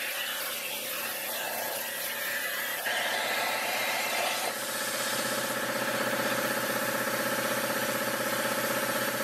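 Air plasma cutter (Eastwood Versa-Cut 40) on a CNC table: a steady hiss of air, then about three seconds in the arc strikes. It cuts sheet steel with a louder, even buzzing hiss.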